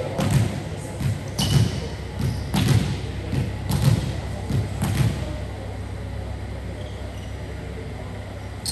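Five evenly spaced thuds, about one a second, over a steady low hum; the thuds stop about five seconds in and the hum carries on.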